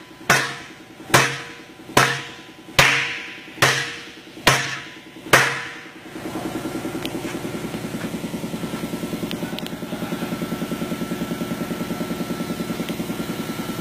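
Hammer beating a fusion TIG-welded sheet-metal panel on a leather shot bag, seven blows a little under a second apart, each ringing briefly, as the weld is abused to test its strength. After the last blow a steady, fast-pulsing machine hum takes over.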